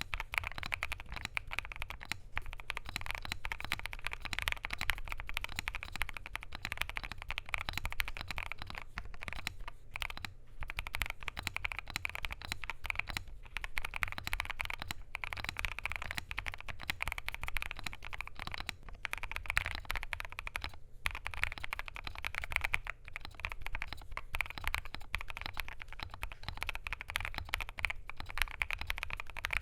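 Fast, continuous typing on a KBDfans Tofu65 2.0 mechanical keyboard with lubed and filmed WS Morandi switches, PBT keycaps, a polycarbonate plate and case foam: a dense stream of keystroke clacks, briefly pausing a couple of times.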